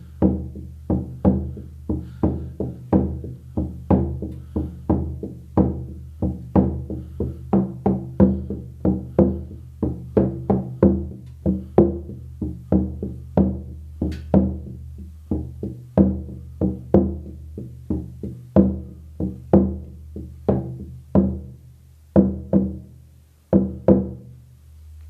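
Hair-on horse skin frame drum, 16-inch on a beech frame, beaten steadily with a firm beater at about two strokes a second. Each stroke leaves a low ringing that carries under the next. The beating stops near the end and the drum rings out.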